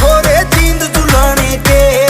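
Loud music with a steady, heavy bass beat and a sliding, vocal-like melody over it.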